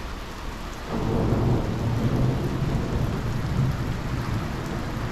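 Heavy rain pouring steadily during a thunderstorm. About a second in, a long rumble of thunder rolls in and lasts several seconds before fading.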